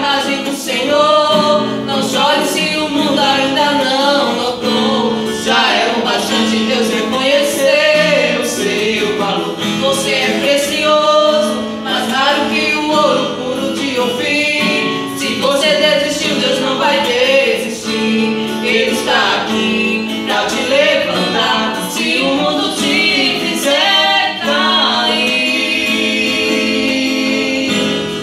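A man and a woman singing a Brazilian gospel song together in Portuguese, accompanied by a strummed acoustic guitar. Near the end the voices stop and the guitar plays on alone.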